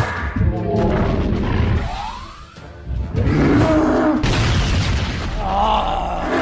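Cartoon soundtrack: music layered with booming sound effects, with a rising swoop about two seconds in, a brief drop, then loud again from about three seconds.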